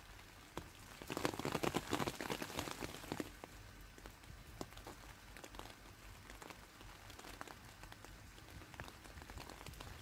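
Light rain: drops pattering on the leaves of a garden shrub. There is a denser spell of pattering about a second in that lasts a couple of seconds, then scattered single drips.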